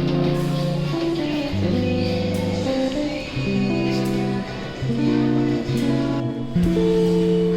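Background music: a guitar-led song, with plucked and strummed guitar chords changing about once a second.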